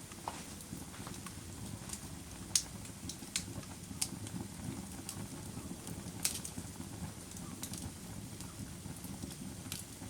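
Wood campfire crackling: irregular sharp pops and snaps over a steady low rush of burning, with a few louder pops.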